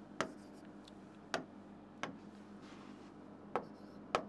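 Whiteboard marker tapping and striking the board while writing: about five sharp taps at uneven spacing, with faint strokes between them, over a steady low hum.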